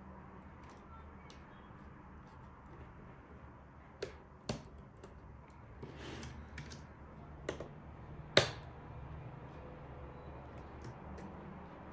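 Hard parts being handled: several separate sharp clicks and taps, the loudest about eight seconds in, over a low steady hum.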